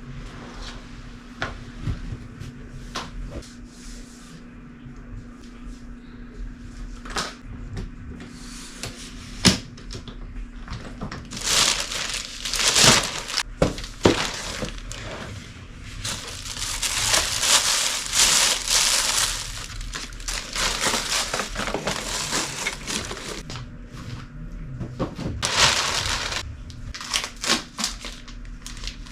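Plastic and cardboard packaging crinkling and rustling as new luggage is unwrapped, in irregular bursts with scattered clicks and knocks; the loudest rustling comes about halfway through and again near the end.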